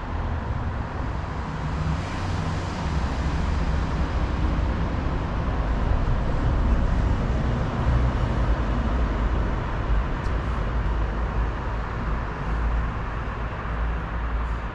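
Street traffic noise, the engine and tyre rumble of a motor vehicle going by. It swells to its loudest in the middle and eases off near the end.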